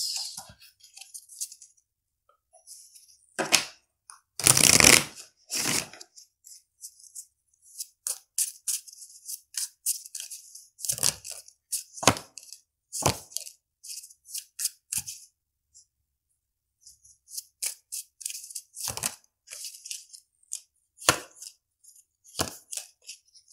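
A tarot deck being shuffled by hand: irregular slaps and flicks of the cards, with a longer, louder rustle about four seconds in and a short pause about two-thirds of the way through.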